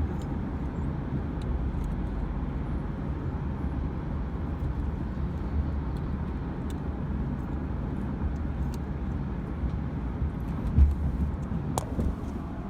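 Steady low rumble of a moving car heard from inside the cabin, with a few faint clicks and a louder thump near the end.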